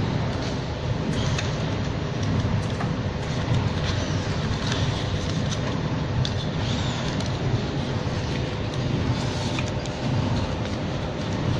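Steady machine rumble and hum, with a few faint clicks of metal parts being handled.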